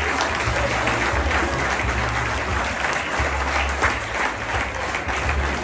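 Audience applauding steadily, many hands clapping at once, with low bass notes of music underneath.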